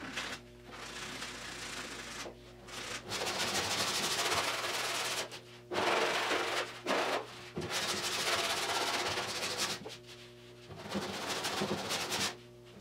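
Coarse 40-grit sandpaper, held in the hand, rasping back and forth over fiberglass filler on a car's steel roof panel. It comes in runs of strokes a second or two long, broken by short pauses.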